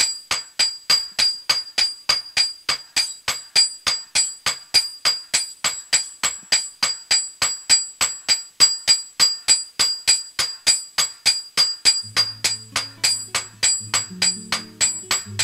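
Hammer blows on a red-hot machete blade resting on a steel anvil: a steady run of strikes about three a second, each with a high metallic ring, as the blade is forged.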